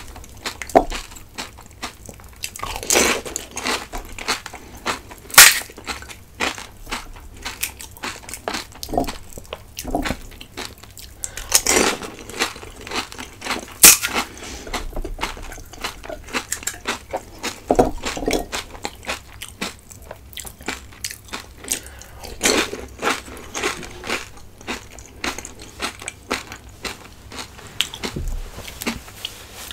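Close-miked eating: a steady run of wet chewing and small crackles, broken by louder crunching bites every few seconds.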